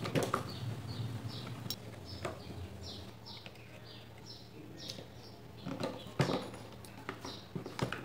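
Clicks and knocks of a fan motor's plastic housing and metal parts being handled and fitted together with a screwdriver, loudest about a second in and again in the last two seconds. Through the first half, a run of short, high chirps that fall in pitch, about two or three a second.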